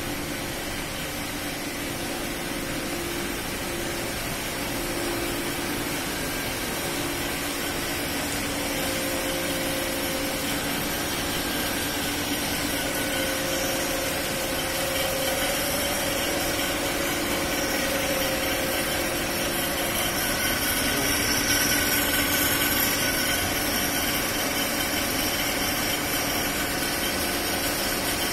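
Electric-motor-driven Roots-type air blower (Blowvac) for fish-tank aeration running steadily: a continuous machine hum and rush of air with several steady whining tones, gradually growing louder.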